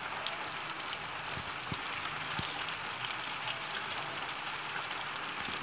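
Slices of goroho banana deep-frying in a wok of hot oil: a steady sizzle with small crackles.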